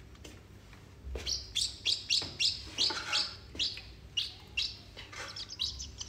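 Great tit chirping as it is hand-fed with tweezers: a quick run of short, high chirps, about two a second, starting about a second in.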